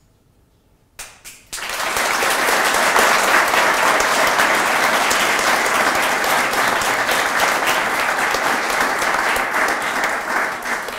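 Audience applauding: a few single claps about a second in, then the applause swells into dense clapping from many hands, which begins to die away near the end.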